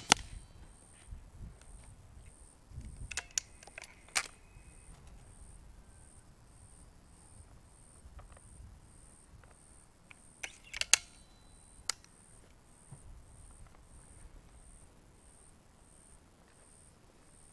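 Faint metallic clicks and clacks from handling a Weihrauch HW 97K .177 underlever air rifle. They come in two short clusters, about three to four seconds in and again about ten to twelve seconds in.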